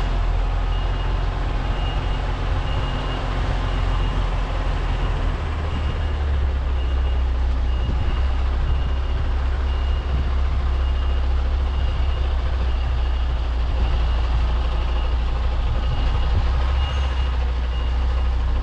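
Articulated lorry reversing: its diesel engine runs steadily with a deep rumble while the reversing alarm beeps about twice a second. The engine note shifts slightly about five seconds in.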